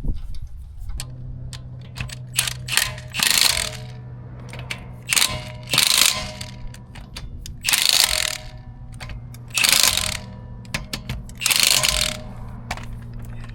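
Ratchet wrench running lug nuts onto a refitted car wheel: five loud spells of ratcheting about two seconds apart, with quick clicks between them, over a steady low hum.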